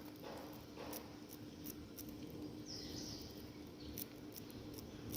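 Faint room tone: a steady low hum with a few faint light ticks and a brief soft hiss about three seconds in.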